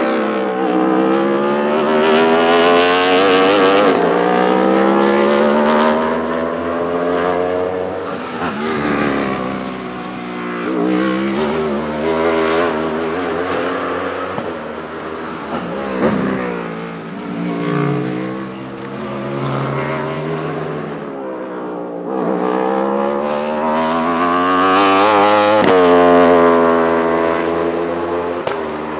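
Wolf GB08 Thunder sport-prototypes, each powered by an Aprilia RSV4 1,000 cc V4 superbike engine, accelerating past hard: the high-revving engine note climbs through the gears with brief dips at each upshift. Midway the engines drop lower and slow, and near the end another car winds up loudly through the gears.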